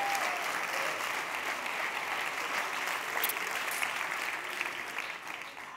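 A large theatre audience applauding, the clapping fading out near the end.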